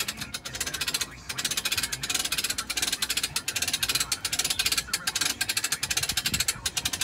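Hand-cranked winch on a deck-mounted tow crane, its ratchet pawl clicking rapidly as the crank is turned, with a short pause about a second in.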